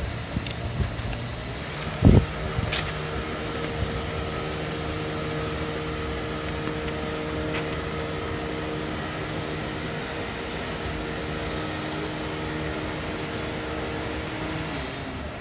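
A loud thump about two seconds in, followed by a steady mechanical hum with a few held tones that stops shortly before the end.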